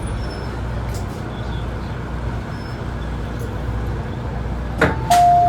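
Interior of an MTR M-train car: a steady low rumble of the train. Near the end there is a click, and then an electronic two-note door chime begins, a higher note then a lower one held.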